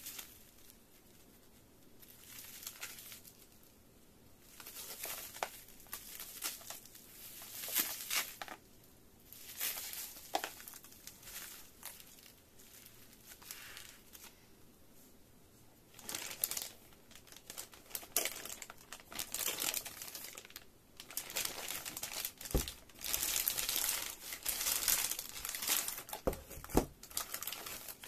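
Bubble-wrap packaging crinkling and rustling in irregular bursts as it is handled and pulled off a box. The bursts come closer together in the second half, with a couple of sharp knocks near the end.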